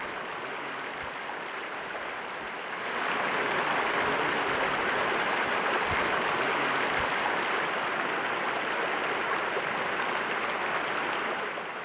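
Steady rush of flowing river water, getting louder about three seconds in.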